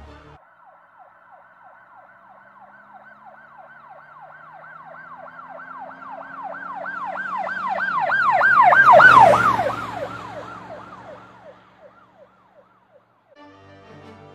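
Emergency-vehicle siren in a fast yelp, about three rises and falls a second, growing louder as it approaches. It is loudest with the vehicle's rumble about nine seconds in, where it drops in pitch as it passes, then fades away.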